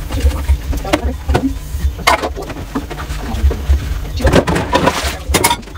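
Dishes being hand-washed at a kitchen sink: plates and bowls clinking and clattering in a few sharp knocks, the busiest just past the middle, over a steady low rumble.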